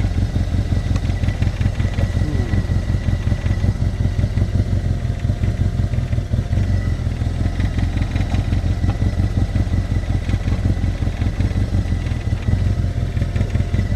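Arctic Cat side-by-side UTV engine idling steadily, a fast even low throb.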